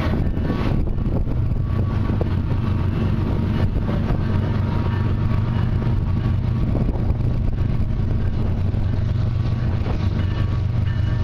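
GE Evolution Series diesel locomotives approaching in full throttle ('hooked') with a heavy loaded train: a steady low engine drone with a hum in it.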